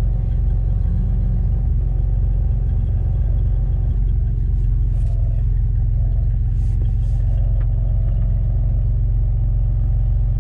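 Steady low rumble of off-road vehicle engines running at low revs, heard from inside a vehicle, as a tube-frame off-road buggy crawls up a rocky slope.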